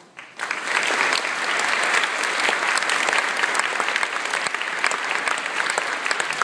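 A large audience applauding, the clapping breaking out about half a second in and then keeping up steadily.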